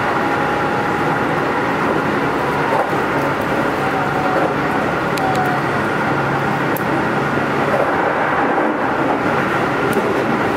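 Keihan 13000 series electric train running between stations: a steady rumble of wheels on the rails with a steady whine over it.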